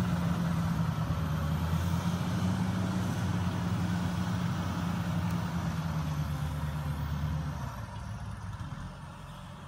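John Deere 670CH motor grader's diesel engine running steadily as the grader works the dirt and drives away. It grows fainter over the last two seconds.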